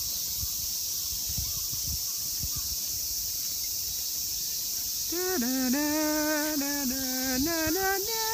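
Steady high-pitched drone of insects in the woods. From about five seconds in, a person hums a tune without words in long held notes that step up and down in pitch.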